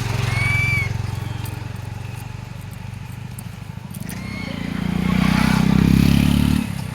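A motor vehicle engine running steadily, growing louder and higher-pitched about two-thirds of the way in, then dropping off sharply near the end.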